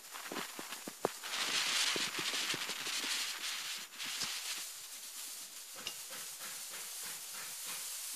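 Lit firecracker fuse hissing and crackling as it burns down, loudest a couple of seconds in. Early on it is mixed with footsteps crunching in snow as the lighter walks away.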